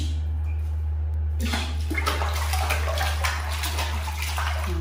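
Water splashing in a plastic basin as hands scoop and throw water over a baby monkey, starting about a second and a half in, with many quick splashes. A steady low hum runs underneath.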